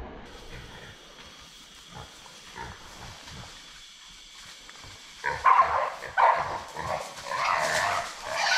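Feral pig squealing, loud and irregular, starting about five seconds in, after a few seconds of only faint scattered sounds.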